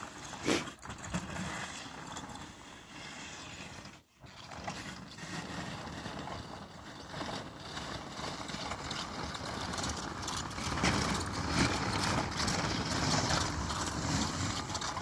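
Radio-controlled tracked vehicle with a plow blade driving through snow: a steady motor and gear whine over the noise of the tracks and blade in the snow, louder in the second half.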